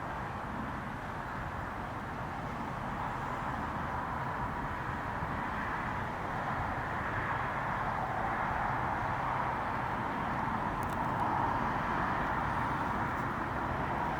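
Boeing 777 jet engines running, a steady roar-like rush centred in the mid range with a low rumble beneath, slowly growing louder as the aircraft draws nearer.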